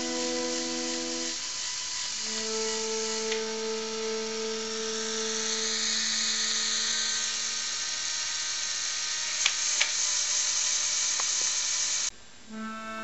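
Small Lego electric motor and its gear train whirring steadily as the elevator runs, with a couple of sharp clicks about three-quarters of the way through, over background music of slow held notes. The whirring cuts off suddenly about a second before the end, leaving only the music.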